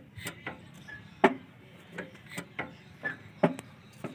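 A Mahindra jeep's brake pedal and linkage being pumped to bleed air from a freshly rebuilt master cylinder. There is a sharp clunk about every two seconds, twice, with lighter clicks in between and a short squeak just before each clunk.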